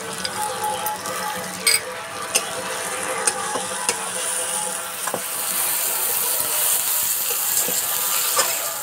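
A metal spatula scrapes and clacks against a kadai (wok) while onion, tomato and ground spice paste sizzle in hot oil. The sizzling grows louder in the second half.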